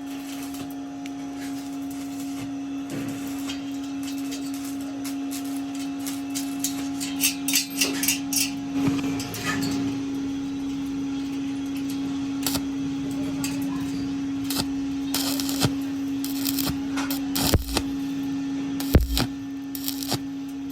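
A steady electrical machine hum, with scattered clicks and knocks from metal work and a couple of louder thumps near the end.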